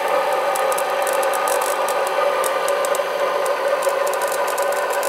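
Rotary inverter (brushed motor-generator) running on a 24-volt supply: a steady hum-whine made of several tones, with fast irregular clicking and crackling over it.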